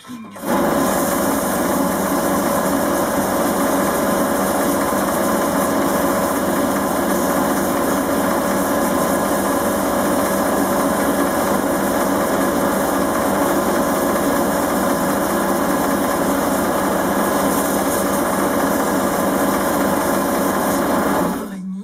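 Einhell wood lathe running steadily with a strip of sandpaper held against the spinning beech blank, giving a constant motor hum under a rushing hiss. It cuts in abruptly about half a second in and cuts off abruptly near the end.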